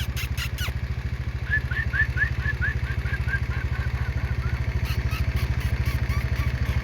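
Motorcycle engine idling with a steady, even low pulse. A quick run of about a dozen high chirps sounds over it for a couple of seconds, and there are a few sharp clicks.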